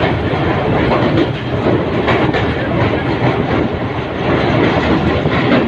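Mehran Express passenger train running at speed, its wheels clattering over the rail joints under a loud, steady rumble, heard from aboard the train.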